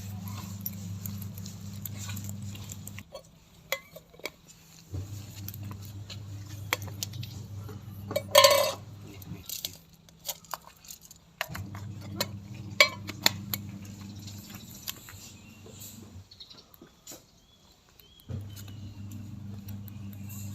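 Cats eating from dishes: scattered clinks and taps of food against the bowls, with one louder clatter about eight seconds in. A low hum cuts in and out several times.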